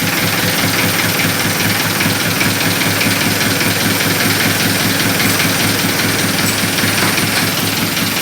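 Isuzu C240 four-cylinder diesel engine idling steadily.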